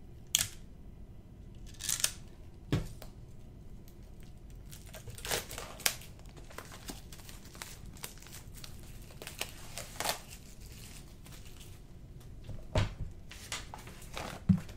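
A utility knife cutting the plastic wrap on a CD album, with the wrap torn and crinkled off in scattered short rustles and scrapes, and a soft knock near the end.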